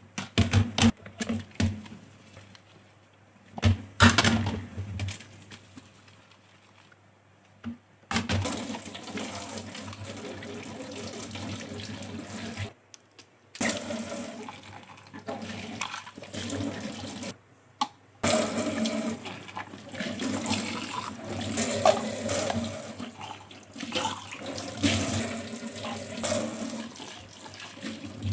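Dishes being washed at a kitchen sink: a few clinks and knocks of dishes, then about eight seconds in the tap water starts running and splashing over the dishes, cutting off briefly twice before running on.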